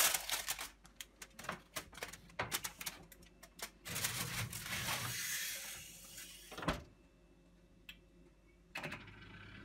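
Aluminium foil crinkling and rustling as foil-wrapped aluminium engine cases are handled and slid into an oven, followed by a single knock about two-thirds in and a few small clicks near the end as the oven dial is turned.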